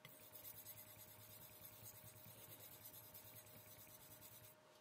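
Steel edge of a damascus chef knife being stroked back and forth on a Shapton Kuromaku 2000-grit whetstone: a faint, continuous scraping hiss that rises and falls with each stroke, then stops near the end.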